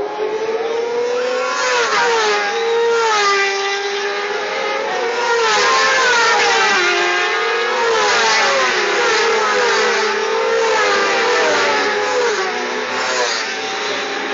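A pack of racing motorcycles accelerating past on a circuit straight, several engines revving at once. Their pitches climb and drop repeatedly as the riders change up through the gears, loudest as the bunch goes by midway, then fading as the last bikes pass.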